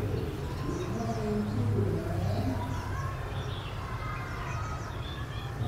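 Caged birds calling: short high chirps throughout, with lower cooing calls in the first couple of seconds, over a steady low hum.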